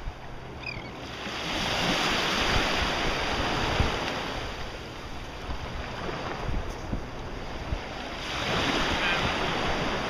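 Small waves washing in shallow surf, with wind buffeting the microphone. The wash swells up about a second in and again near the end.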